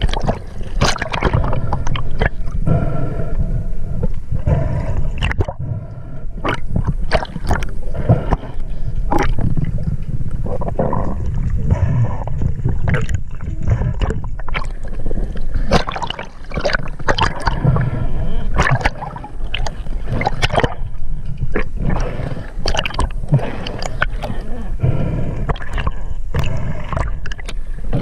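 Water sloshing and gurgling, with frequent short knocks and splashes over a steady low rumble.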